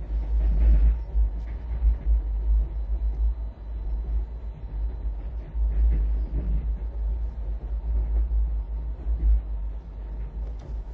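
Steady low rumble of a moving passenger train, heard from inside a sleeper coach.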